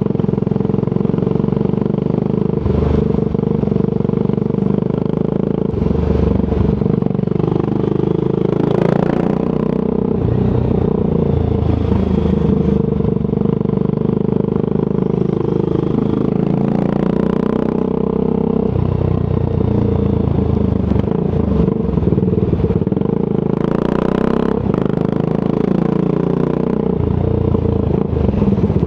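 Triumph Scrambler 400 X's single-cylinder engine through a Zard aftermarket exhaust, riding along: the exhaust note rises and falls again and again with throttle and gear changes.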